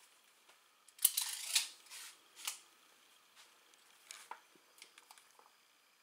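Handling noise: a sharp click about a second in, then about half a second of scraping and a few lighter clicks and knocks.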